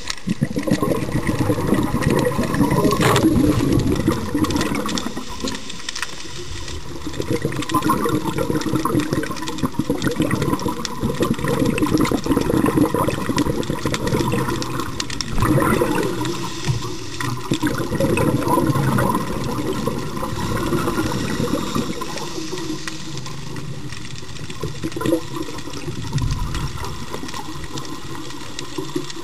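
Underwater sound: a constant crackle of clicks and rattles from nearby spiny lobsters, under gurgling scuba exhaust bubbles that swell every few seconds.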